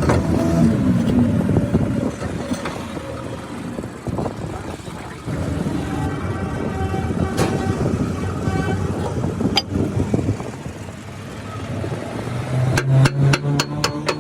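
Motor vehicle engines running, like road traffic passing close by, with a steady low hum building near the end and a quick run of sharp clicks at the very end.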